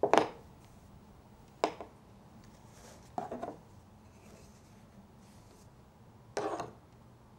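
Tablet weaving: four short bouts of clacking and rubbing as the weaving tablets are turned and the warp threads handled, the first the loudest.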